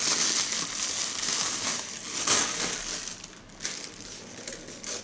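Clear plastic wrapping crinkling as it is pulled off a candlepin bowling ball. The crinkling is strongest over the first couple of seconds, then comes in a few shorter rustles and grows quieter near the end.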